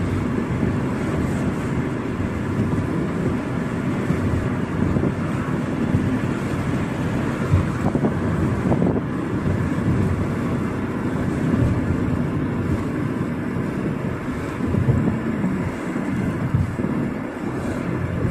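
Steady road, engine and wind noise of a car driving along, heard from inside the cabin.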